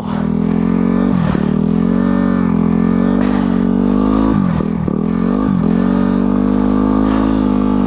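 Single-cylinder four-stroke dirt bike engine held at high revs, its pitch dipping briefly and coming back up about a second in and a few times around the middle, while the rear wheel spins on snow with almost no traction.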